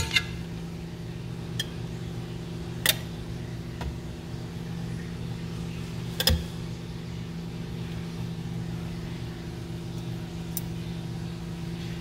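A steady low mechanical hum, with a few sharp clicks of metal feeding tweezers knocking against the glass of a frog enclosure, the loudest about six seconds in.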